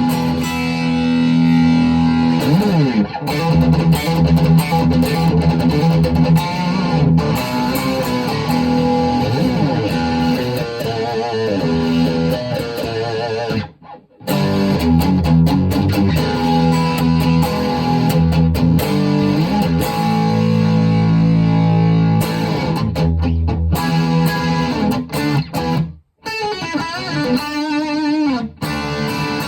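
Schecter OL-PT-TH thinline electric guitar played through a VOX Mini5 practice amp: sustained notes and phrases with bent, sliding pitches. The playing stops briefly about halfway through and again near the end.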